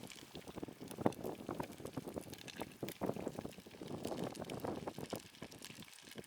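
Battered fish chunks frying in hot oil, sizzling and crackling with many small pops.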